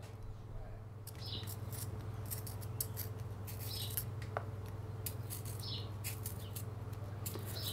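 A wooden pencil being turned by hand in a brass M+R Pollux wedge sharpener, its blade cutting the first point on an unsharpened pencil. It makes a run of short dry scraping rasps that start about a second in.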